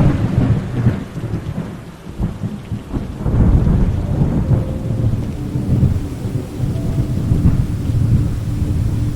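Thunderstorm with steady rain: a thunderclap right at the start, then long rolling rumbles of thunder that swell again about three seconds in and fade slowly.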